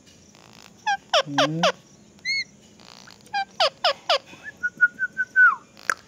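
Rose-ringed parakeet calling while being stroked on its back: a string of short squawks that drop steeply in pitch, a brief rising-and-falling chirp, and near the end one held whistling note lasting about a second.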